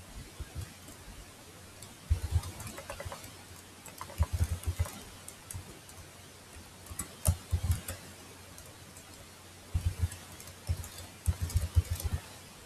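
Computer keyboard typing in about five short bursts of keystrokes, with pauses of a second or two between bursts.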